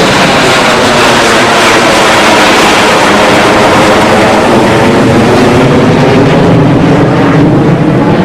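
Military jet passing overhead, a loud, steady engine noise that overloads the recording. The high hiss dulls after about six seconds while a lower rumble carries on.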